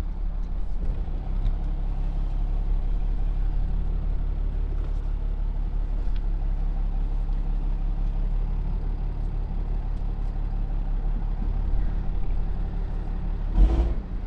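Pickup truck engine running, heard from inside the cab as a steady low hum. A brief sharp thump comes near the end.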